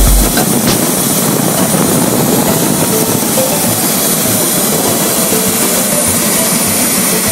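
Bell 407 helicopter running on the ground with its rotors turning, heard close up: the Rolls-Royce 250 turboshaft engine and rotor make a steady, loud noise with a high steady turbine whine over it.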